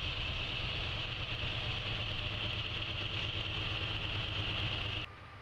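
Engine of rail maintenance equipment running steadily, with a constant high-pitched drone over the low rumble; both cut off abruptly near the end.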